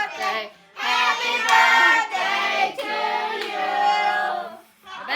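A young voice singing a tune in held, stepping notes, in short phrases with brief pauses between them.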